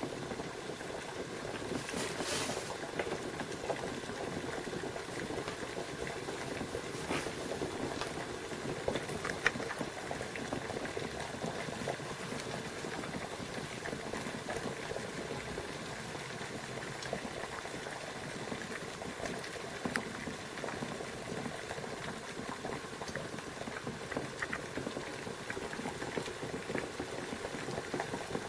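Water at a boil, bubbling steadily with many small scattered pops, and one brief louder burst about two seconds in.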